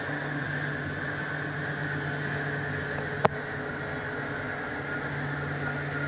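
Travel-trailer bedroom slide-out mechanism running as the slide retracts: a steady electric motor hum, with one sharp click a little past three seconds in.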